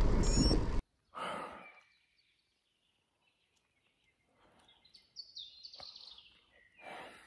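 Wind and rolling-tyre noise from cycling that cuts off abruptly under a second in. In the quiet of a forest there is then a heavy exhale, a songbird's short, quickly falling song about five seconds in, and another breath near the end.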